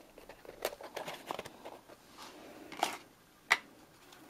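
Handling noises from a perspex-fronted display case and a cardboard presentation box: scattered light clicks and rustles, with one sharp click about three and a half seconds in.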